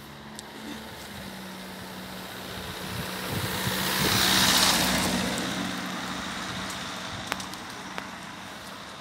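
A car driving past, its tyre and engine noise swelling to a peak about halfway through and then fading, over a steady low hum. Two short clicks sound near the end.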